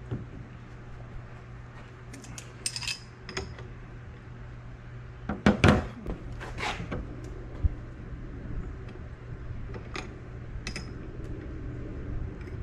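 Hand tools clinking and scraping against the metal top-mount hardware of a removed car shock absorber: scattered sharp clinks and taps, loudest in a quick cluster about halfway through, over a steady low hum.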